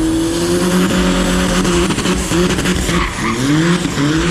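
Drift car engine revving up and down while its tyres screech in a slide, with several quick rises in revs near the end.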